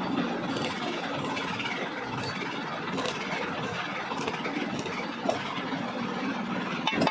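A steady machine running noise with a low hum, like an engine or motor idling, with a few faint clicks.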